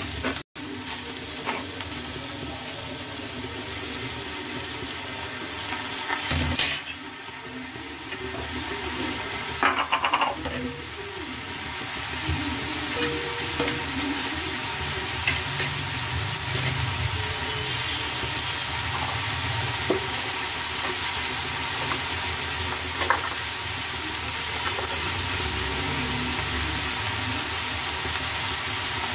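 Vegetables frying in mustard oil in a kadai, a steady sizzle, as a spatula stirs them with the spinach. A few sharp knocks and a short clatter of the spatula against the pan stand out above the sizzle.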